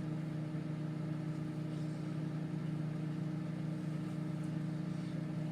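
Magic Chef microwave oven running mid-cycle, a steady low hum.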